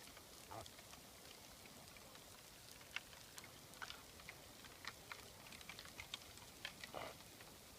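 Reindeer herd running, a faint irregular crackling of many small clicks like a burning campfire, which the uploader puts down to the animals' antlers. A couple of softer thuds come about half a second in and near the end.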